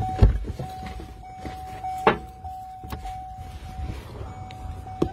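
Car crash heard from inside the cabin: a heavy thump about a quarter second in, then scattered knocks and clicks as the car settles, over a steady high tone.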